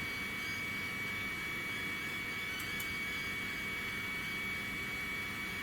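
Steady electrical hum with a constant high-pitched whine, unchanging throughout.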